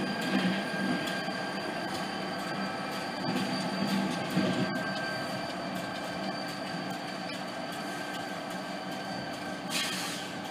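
New England Central freight train of autorack cars rolling along the rails, its wheels squealing in steady high tones, one easing slightly lower at the start, over a continuous rolling rumble. A short hiss comes near the end.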